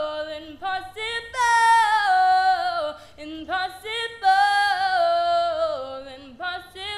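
A woman singing unaccompanied, a cappella: several long, held phrases whose notes slide downward, with short breaths between them.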